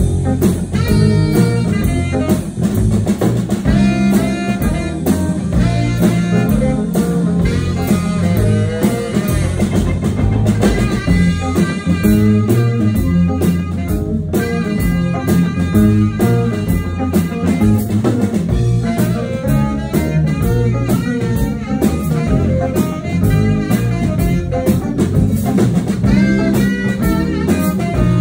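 Live blues band playing with electric guitar and drum kit, at a steady beat.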